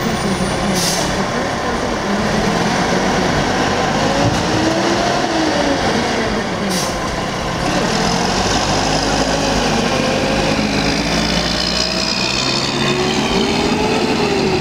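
Mack rear-loader garbage truck's diesel engine revving up and down as it loads and then pulls away, with short air-brake hisses about a second in and again around seven seconds.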